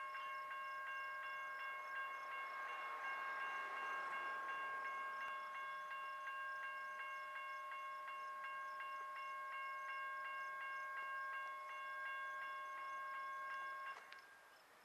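Railroad grade-crossing bell ringing steadily with rapid, even strikes about three a second, then cutting off abruptly near the end.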